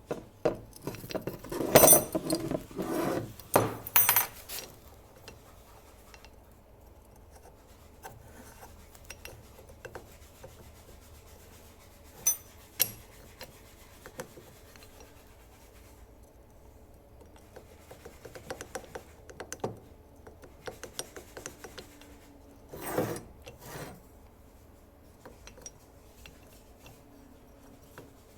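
Irregular rubbing and clinking of hard parts being handled, loudest in the first few seconds, with two sharp clicks a third of the way in and another rubbing burst later on.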